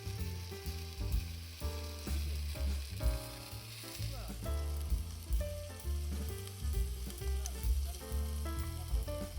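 Food sizzling and frying in a hot pan, a steady hiss, under background music with a plucked-sounding melody and a bass line.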